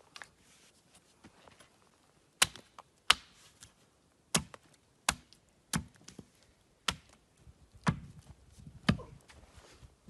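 Axe chopping a wooden pole on a log chopping block: about eight sharp strikes, roughly one a second, beginning a couple of seconds in, the first two the loudest.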